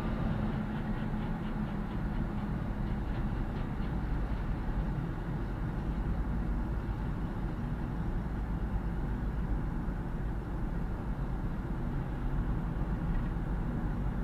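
Road and engine noise inside a car driving on a highway: a steady low rumble.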